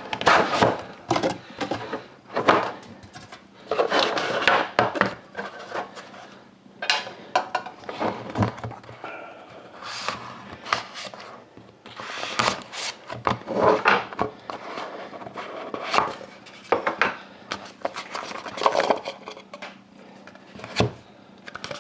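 Kitchen knife scraping and cutting along the seal of a Panini Dominion hockey card tin, with irregular clicks, scrapes and knocks as the tin is handled and opened.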